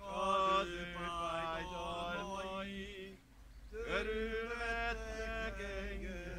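A man chanting a Hungarian funeral hymn unaccompanied, in long held notes, with a short breath pause about three seconds in.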